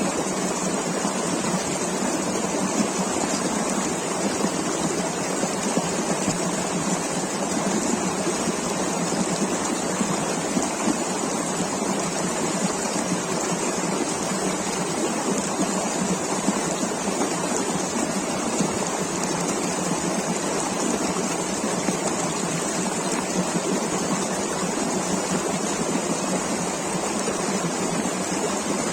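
River water rushing and splashing over rocks, a steady dense rush with no change in level.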